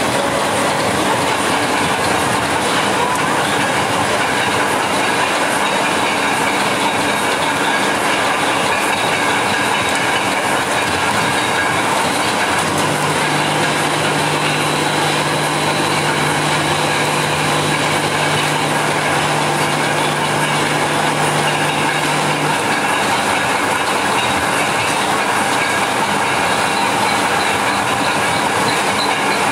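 Loud, steady rumble and rattle of heavy machinery running without a break, with a steady low hum joining from about 13 seconds in until about three quarters of the way through.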